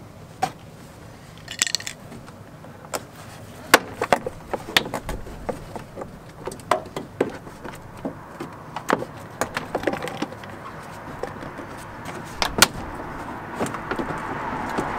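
Plastic door-card trim clips popping and snapping as a van's door card is prised and pulled away from the door: irregular sharp clicks and knocks, with the loudest about four seconds in and another near the end.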